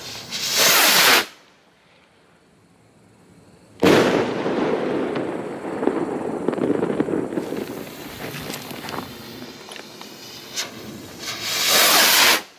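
Funke Himmelsstürmer firework rockets: one launches with a loud rushing whoosh that grows louder and cuts off a little after a second in. About four seconds in, a sharp bang as a rocket bursts, then about five seconds of fading crackling. Near the end another rocket launches with a whoosh that swells and cuts off.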